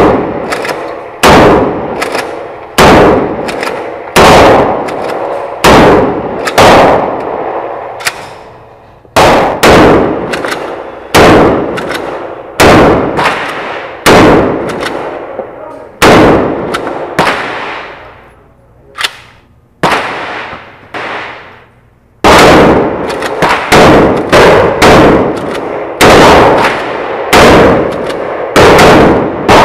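A long string of 12-gauge shotgun blasts from a Mossberg 590 Shockwave pump shotgun being test-fired, each shot followed by a long ringing echo of the indoor range. There are about two dozen shots in irregular clusters, with a short pause about two-thirds of the way through.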